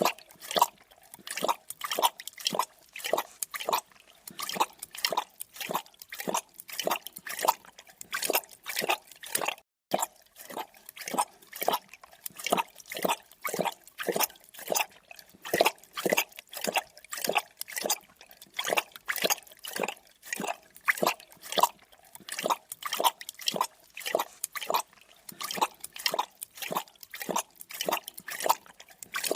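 A creature drinking, lapping up liquid in quick, wet, even laps, about two to three a second, with one brief pause about ten seconds in.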